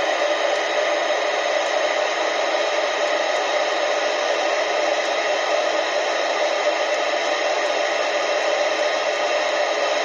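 Steady hiss of static from the Team Euro 3004UK CB radio's speaker, the receiver open with no station coming through while it steps through the channels.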